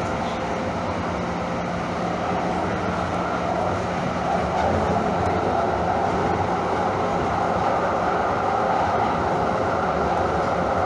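Calgary CTrain light-rail car running, a steady rumble of wheels on rail heard from inside the car, getting a little louder about four seconds in.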